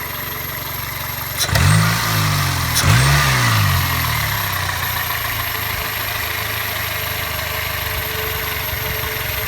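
1999 Toyota Corolla's 1.8-litre four-cylinder engine idling. It is revved briefly twice, about a second and a half and three seconds in, then settles back to a steady idle.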